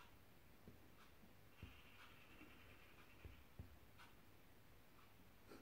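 Near silence: faint background hum with a few soft low thumps.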